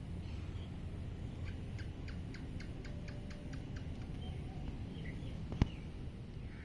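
Steady outdoor background rumble with a bird's quick run of about ten chirps, roughly five a second, and a single sharp click near the end.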